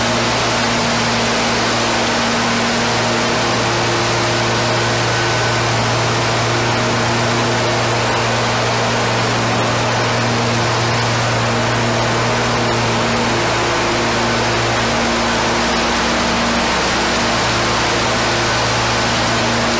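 Wacker Neuson CRT48 ride-on power trowel running steadily while floating a concrete floor: an even engine drone with a low hum under a constant hiss.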